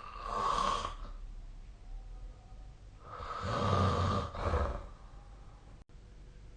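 A sleeping person snoring: one short snore at the start, then a longer, louder snore about three seconds in with a low, rattling rumble.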